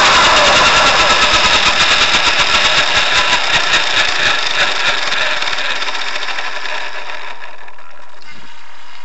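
Electric RC helicopter's motor and main rotor spooling down after landing, the whine falling in pitch. The rotor's pulsing whoosh slows and fades away about seven seconds in.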